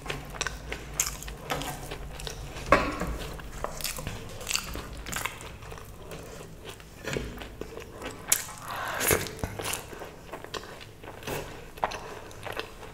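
A person eating close to the microphone: irregular bites and chewing with scattered crunches.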